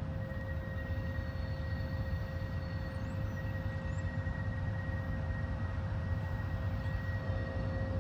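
Diesel freight locomotive approaching at low speed, its engine running with a deep, steady drone and a high steady whine held over it, slowly getting louder.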